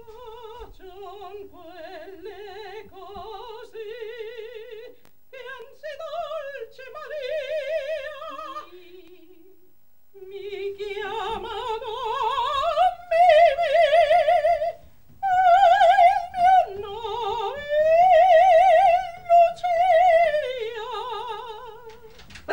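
A high operatic voice singing alone with a wide vibrato, in long held phrases broken by short pauses. It grows louder about halfway through, with the pitch climbing to its highest notes.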